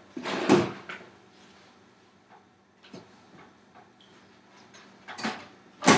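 Off-camera kitchen handling noises while rice is taken out of a rice cooker: a brief rustle at the start, a few faint ticks, then two louder clatters near the end.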